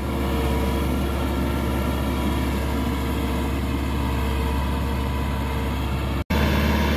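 New tractor's diesel engine running steadily under load as it pulls a cultivator through the field in fourth low gear at about 2000 RPM during running-in. The sound cuts out for an instant about six seconds in, then carries on.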